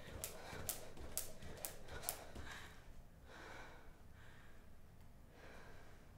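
Sharp ticks about twice a second that stop about two seconds in, followed by a woman's soft breathing.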